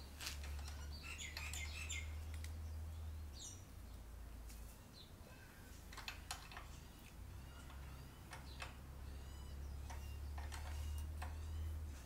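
Scattered light metallic clicks of a spanner working the rear brake pedal's free-play adjuster, over a low steady hum, with faint small-bird chirps throughout.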